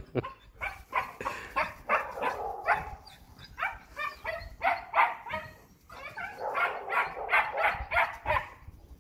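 Young German Shepherd puppies yipping and barking as they play, a quick run of short, high-pitched calls with a couple of brief pauses.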